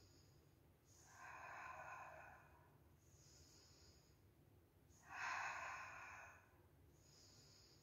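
A woman breathing hard in a steady rhythm, in time with alternating leg switches in a Pilates scissors exercise. Two audible breaths out, about a second in and about five seconds in, each followed by a softer, hissing breath in.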